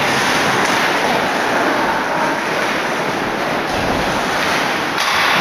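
Crowd of hockey spectators cheering and shouting, a loud, steady roar of many voices.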